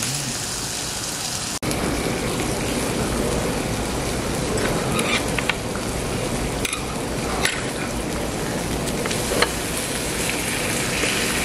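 Pork sizzling on a hot grill, a steady hiss broken by several sharp pops of spattering fat.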